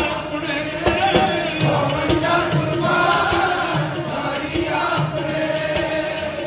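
Sikh kirtan: a held drone of harmonium-like tones under singing voices, with tabla strokes throughout, easing off near the end.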